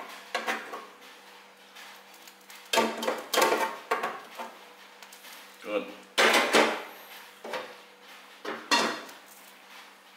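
Crockery and pots clattering and knocking in a series of short bursts as a china plate is handled and moved near a cooking pot, over a faint steady hum.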